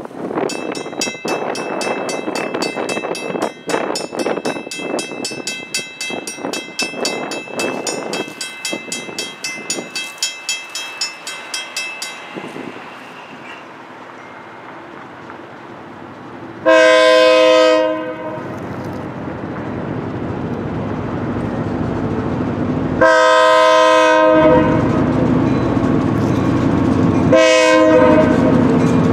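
Railroad grade-crossing warning bell ringing in rapid, even strikes, stopping about twelve seconds in. After it, the rumble of an approaching Providence & Worcester diesel locomotive grows louder, and the locomotive sounds its horn in two long blasts and one short one, the opening of the standard long-long-short-long crossing signal.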